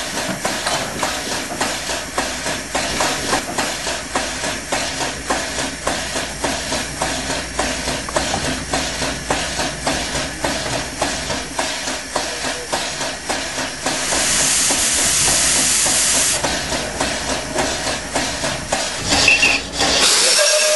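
Two-foot-gauge steam locomotive working, its exhaust beating steadily about two and a half times a second. A burst of steam hiss comes a little past halfway, and steam vents loudly near the end.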